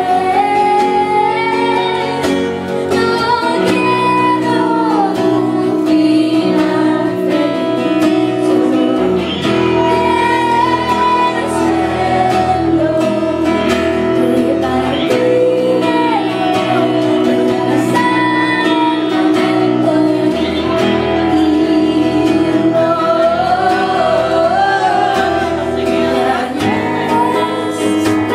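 A woman singing a song live with acoustic guitar accompaniment, heard from the audience in a club.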